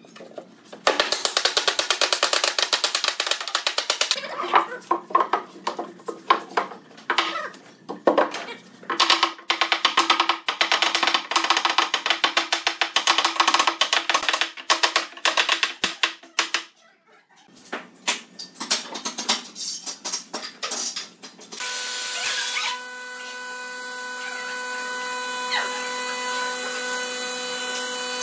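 Rapid runs of wooden mallet and hammer blows on a pine bed frame, knocking its joints together. About 21 seconds in they stop and a sander starts, with a steady whir of fixed pitch that grows slowly louder.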